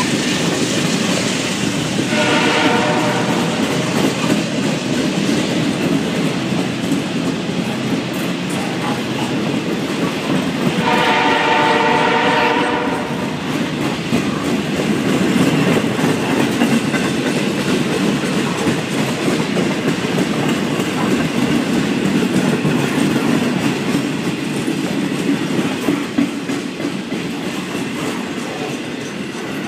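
Freight train boxcars rolling past at close range, a steady rumble with wheels clattering over the rail joints. A train horn sounds twice, briefly about two seconds in and longer around eleven seconds in.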